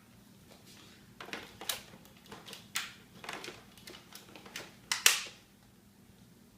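Plastic clicks and knocks of a cordless stick vacuum's dust bin being handled, opened and fitted back: about a dozen separate knocks, the loudest about five seconds in. The vacuum's motor is not running.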